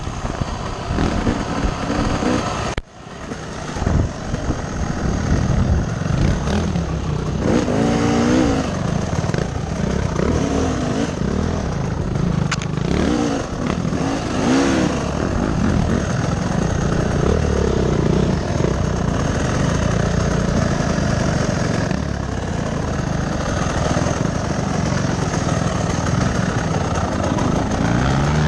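Dirt bike engine running hard under the rider, its pitch rising and falling with the throttle and gear changes, heard from the rider's helmet. The engine sound drops off sharply for a moment about three seconds in, then picks up again.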